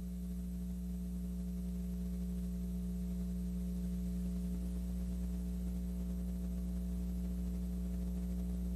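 Steady electrical mains hum: a low buzzing drone that does not change.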